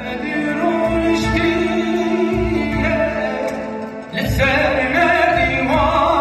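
Kurdish music performed live: a singer holding long, wavering notes over instrumental accompaniment, moving to a new phrase about four seconds in.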